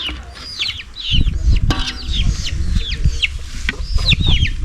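Chicks peeping: a rapid series of short, high, falling chirps, about three a second, with a low rumble underneath from about a second in and a single sharp click partway through.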